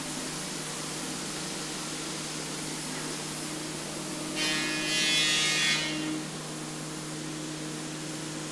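Steady hiss and hum of paint-shop air handling, with a louder burst of whistling compressed-air hiss lasting about a second and a half, a little past the halfway point.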